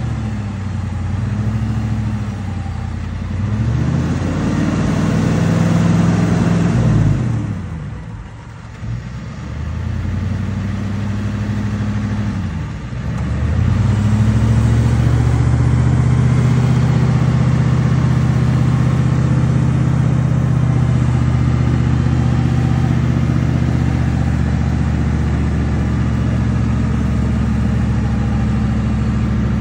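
OBS Ford service truck's engine revving up and down several times, then held at steady, high revs for the second half as the truck works through the mud.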